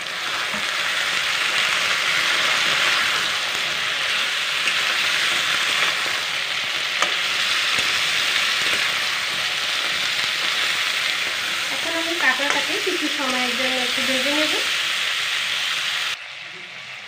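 Crab pieces frying in hot mustard oil with onions in an aluminium kadai, a steady loud sizzle, stirred with a metal spatula that gives an occasional click against the pan. This is the searing (kosha) stage just after the crab goes in. The sizzle drops off abruptly about a second before the end.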